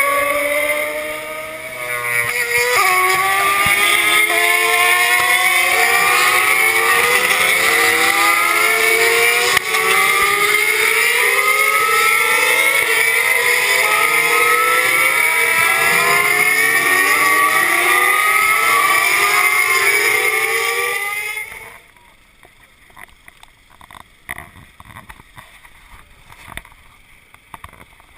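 Race car engines accelerating hard through the gears: each engine note climbs and then drops back at an upshift, with several cars overlapping. The sound cuts off about 21 seconds in, leaving a much quieter stretch of scattered small knocks.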